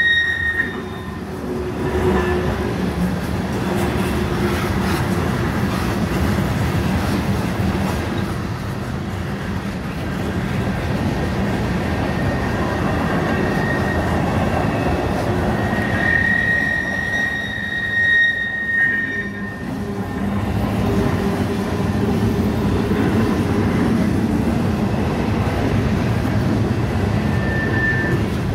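Cars of a CSX manifest freight train, mostly covered hoppers, rolling past with a steady noise of steel wheels on rail. A high wheel squeal rings out at the start, again for a few seconds a little past the middle, and briefly near the end.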